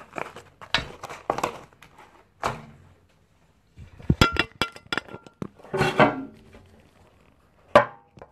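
Things being handled and set down on a tabletop: a series of sharp knocks and clinks, some ringing briefly, with a short burst of rustling about six seconds in.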